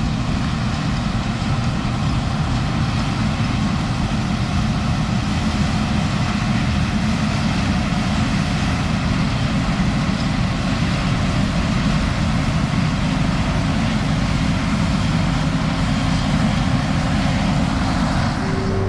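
A large diesel engine on farm equipment running steadily at a constant speed, with no change in pitch or level.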